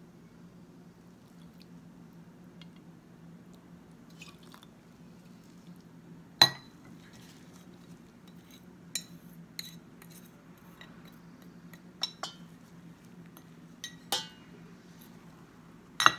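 Glass and dishes clinking as they are handled: a run of sharp, ringing clinks in the second half, the loudest about six and a half seconds in, over a faint steady hum.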